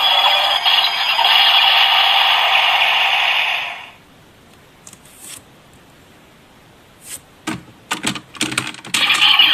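A DX Kamen Rider transformation belt with the Geiz Majesty Ridewatch plays its electronic finisher sound effect through its small speaker, then cuts off about four seconds in. Plastic clicks and rattles of the toy being handled follow, and a loud sound starts again near the end.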